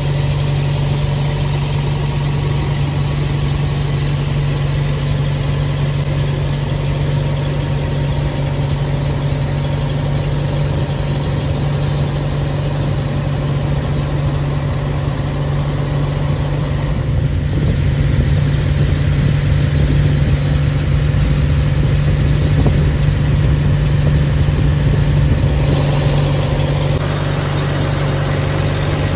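An engine running steadily at close range, with a constant low hum; it grows somewhat louder for several seconds in the second half.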